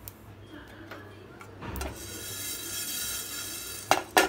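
Dry-roasted coriander seeds and whole spices sliding and rattling across a nonstick pan as it is tilted, then two sharp knocks near the end.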